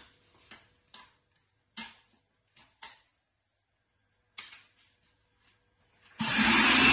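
A few clicks and knocks as an electric food chopper is handled and closed, then its motor starts suddenly about six seconds in and runs with a loud, steady whirr, chopping cooked lentils and chicken.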